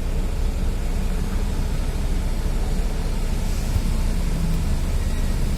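Logging truck's diesel engine running steadily at a low pitch, under load as it climbs the hill.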